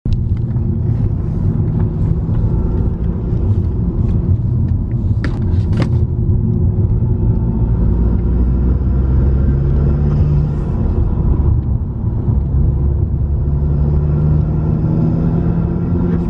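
A car's engine and road noise heard from inside the cabin while driving, a steady low rumble with the engine note rising twice as it accelerates. A few sharp clicks or knocks come about five to six seconds in.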